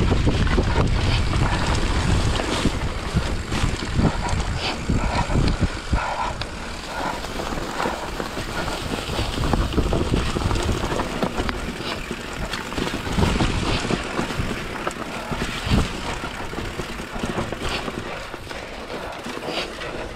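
Hardtail mountain bike rolling fast down a dirt trail: wind buffeting the action-camera microphone over tyre noise on loose ground, with frequent clicks and knocks from the bike. Loudest in the first few seconds, then somewhat quieter.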